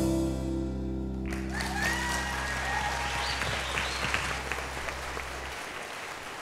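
A pit orchestra holds the song's final chord while the audience breaks into applause about a second in. The chord cuts off shortly before the end, and the applause carries on.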